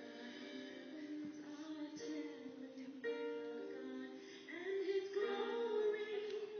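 A song playing, with a woman singing over long held instrumental chords.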